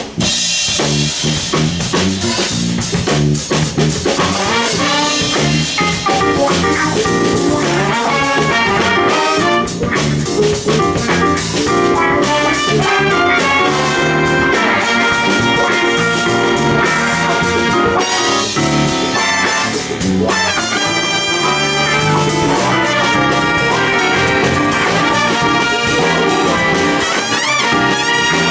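Jazz big band playing live: trumpets and trombones in full ensemble over a drum kit.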